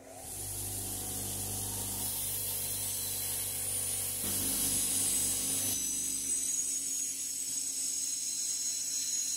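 Bench grinder running with a wire wheel, its bristles scratching green paint off a steel pipe wrench handle. A steady motor hum sits under a high hiss from the wire, and the lower part of the sound eases about six seconds in.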